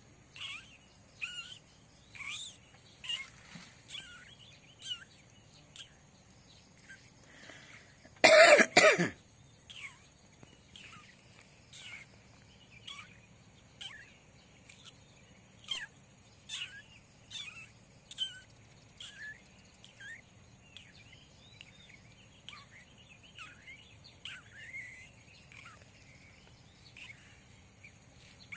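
A kitten mewing over and over in short, high cries, about one a second. About eight seconds in there is a loud burst of noise lasting about a second.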